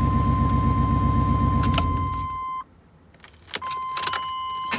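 A 2000 Chevy Tahoe's 5.7-litre V8 cranking on the starter in a hard start, with a steady high warning tone. The cranking stops about two seconds in; after a brief quiet come a few clicks from the ignition key.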